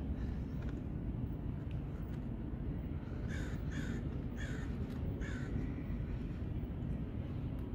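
A bird calling four times in quick succession, a little over half a second apart, over a steady low rumble.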